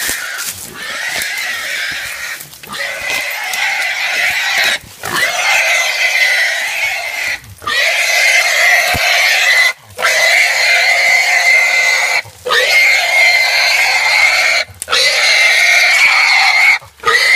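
A hog squealing loudly in long cries of about two seconds each, broken by brief pauses about every two and a half seconds, while a catch dog holds it.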